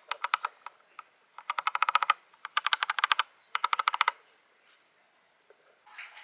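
Typing on a mechanical keyboard: four quick runs of rapid key clicks in the first four seconds, then a pause.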